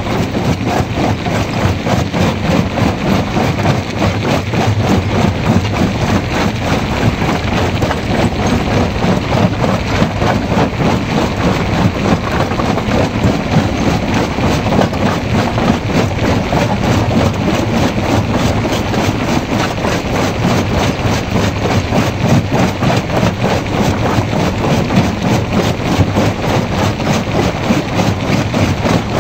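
Stone jaw crusher running and crushing rock: a loud, steady mechanical clatter with a rapid, even beat of knocks as stones are broken between the jaw plates.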